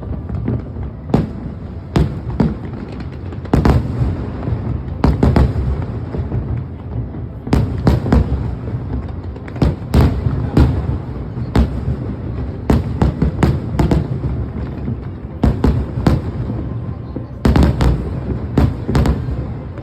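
Aerial fireworks bursting in irregular volleys, many sharp bangs a second or so apart and some in quick clusters, over a continuous low rumble from the show.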